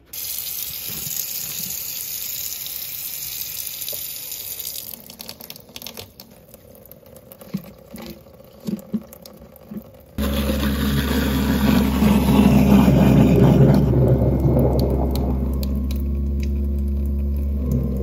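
Kitchen faucet running a strong stream into the sink, then turned down to a thin trickle about five seconds in, with a few small clicks. About ten seconds in, the garbage disposal switches on with a sudden steady low hum and churning as it grinds a disposer-cleaning packet.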